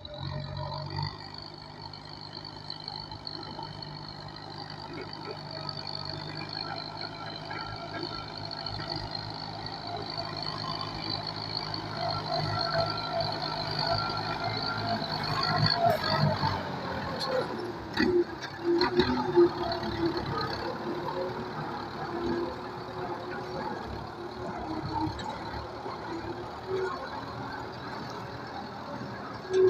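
Kubota M9540 tractor's diesel engine running steadily while ploughing. About sixteen seconds in, its low note drops away and a higher steady engine tone carries on, with a few knocks shortly after.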